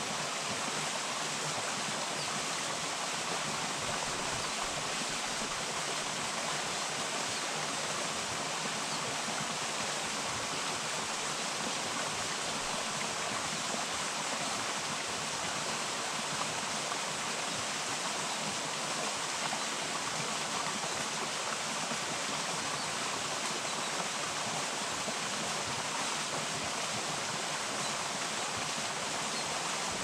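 Steady rushing of a small forest stream.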